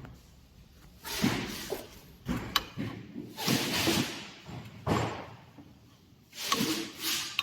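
A series of separate knocks and thumps, about six in seven seconds, each with a short scraping tail, and a couple of sharp clicks among them.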